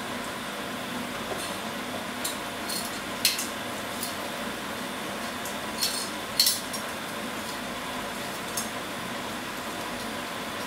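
Dry spaghetti going into a steel pot of boiling water, with a handful of short, sharp clinks against the pot, the loudest about three and six seconds in, over a steady hiss from the lit gas stove.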